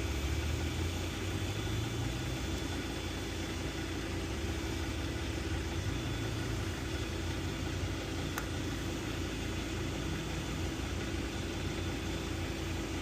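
A steady low engine hum, with one faint sharp click about eight seconds in.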